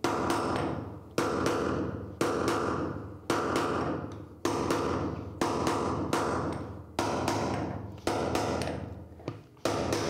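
Hammer blows on a metal drift held against the bearing in a washing-machine tub's hub, about one blow a second, each clanging and ringing away before the next. The bearing and seal are being driven out and are stuck fast.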